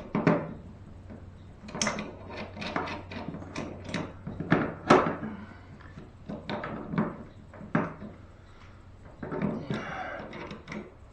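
Irregular metallic clicks, knocks and clatter of hand tools being worked against an outboard motor's lower shock mount bracket as vice grips (locking pliers) are clamped on, over a faint steady hum.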